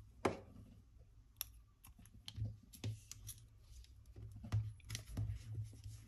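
Small tabletop handling sounds of paper crafting: a sharp tap about a quarter second in as the glue stick is set down, then scattered light clicks and paper rustles as a paper cut-out moon is pressed onto a paper picture.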